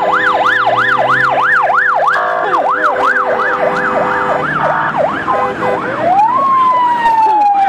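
Motorcade escort sirens in a fast yelp, between two and three rising-and-falling sweeps a second, over a steady tone. About six seconds in, the yelp gives way to one rise and a long, slow falling wail.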